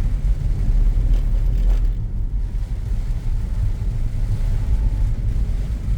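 Steady low rumble that wavers in level, with only a faint hiss above it.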